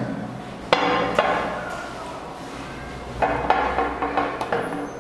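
Glass bottle and drinking glasses being handled on a table: a few sharp knocks and clinks with short ringing, about a second in and again after three seconds.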